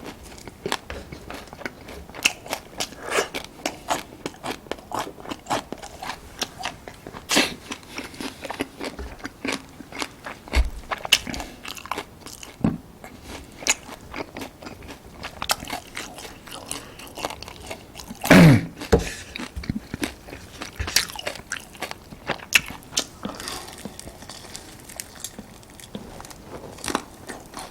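Close-miked eating: biting and chewing with a steady run of small crunches and clicks, and one louder, longer crunch about 18 seconds in.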